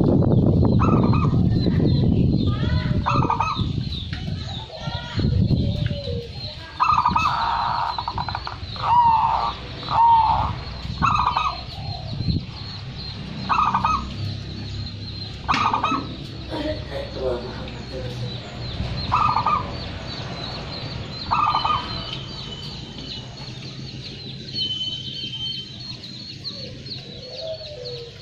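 Zebra dove (perkutut) cooing: a run of short staccato coos, about a second apart at first, then spaced a few seconds apart. A loud low rumble fills the first few seconds, before the coos begin.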